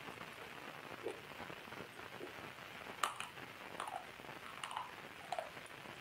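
Water dripping: about six separate drops plinking, each a short note that slides down in pitch, the loudest about three seconds in, over a light steady hiss.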